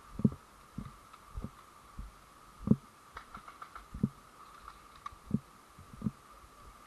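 Dull low thumps about one and a half a second, typical of footsteps jolting a body-worn camera while walking, over a faint steady high-pitched hum.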